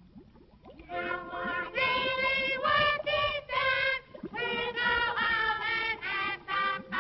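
A chorus of high voices singing a melody in held notes on a 1930s cartoon soundtrack. The singing starts about a second in and breaks off briefly around four seconds in.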